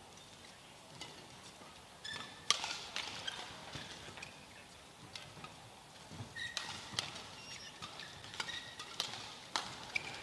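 Badminton rally: several sharp racket strikes on the shuttlecock, coming more quickly in the second half, with short squeaks of court shoes between them.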